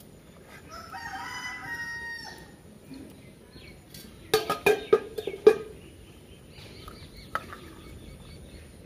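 A rooster crows once, a held call about a second in. A few seconds later, steel kitchen utensils clank sharply four or five times; these are the loudest sounds.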